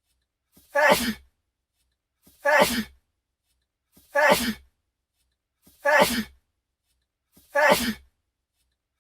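A man's single sharp sneeze, repeated five times as one identical looped clip, about every second and three quarters with dead silence between. Each sneeze has a faint intake just before it.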